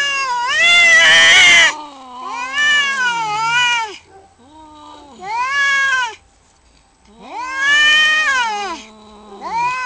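Two domestic cats yowling at each other in an aggressive standoff: a series of about five long, wavering, rising-and-falling howls with short gaps. The first, about a second in, is the loudest and harsh, almost a scream.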